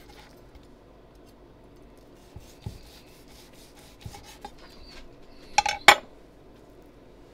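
Chef's knife sawing through a seared steak on a wooden cutting board, with soft scrapes and light taps, then a louder clatter of scrapes and clinks from the knives about six seconds in as the slice is lifted on the blade.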